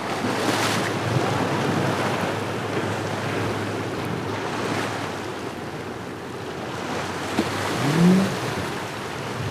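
Wind buffeting the microphone over breaking surf in a rough inlet, with a brief rising whine about eight seconds in.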